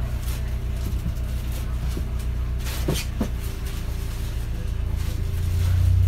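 London bus engine idling, heard from inside the cabin: a steady low hum with a high-pitched whine over it, and a few light knocks. About five seconds in, a deeper hum swells louder.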